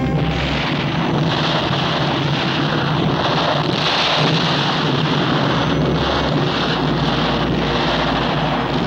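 Explosion and fire sound effects: a loud, continuous rumble and hiss with no separate blasts standing out.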